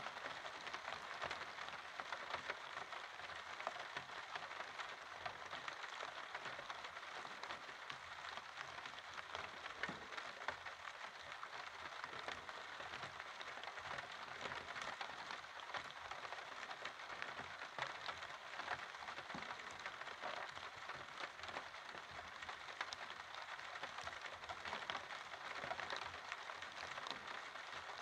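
Steady rain falling, with a dense scatter of small drop hits ticking over an even hiss.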